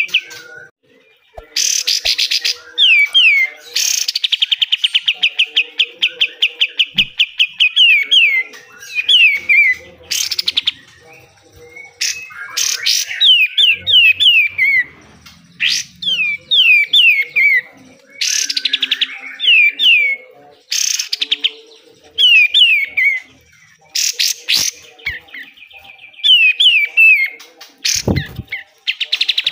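White-shouldered triller (kapas tembak) singing continuously: fast rattling trills of repeated notes alternate with runs of three or four whistled notes sliding downward. Harsh, rasping bursts (besetan) cut in every few seconds. A dull thump comes near the end.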